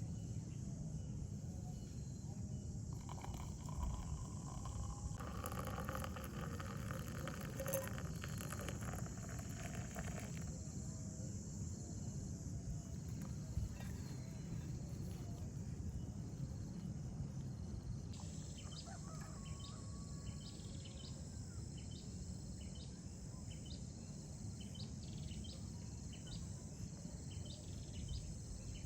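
Outdoor nature ambience: insects droning steadily over a low rumble, with repeated short insect or bird chirps starting about two-thirds of the way through.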